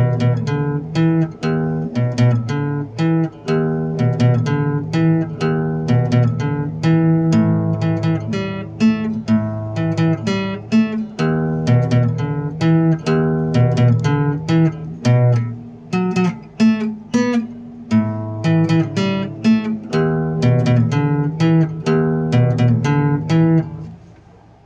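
Background music of a plucked acoustic guitar, a steady run of picked and strummed notes that stops shortly before the end.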